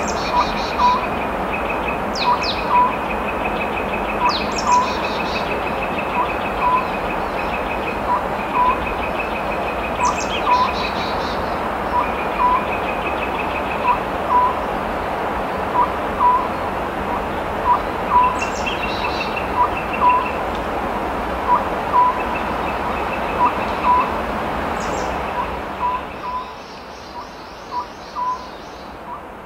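Oriental scops owl singing, a short low two-note call repeated about every two seconds, over a steady background hiss that fades near the end.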